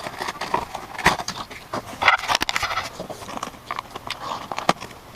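Irregular clicks and knocks of computer hardware being handled and fitted into a PC case, with some rustling between them.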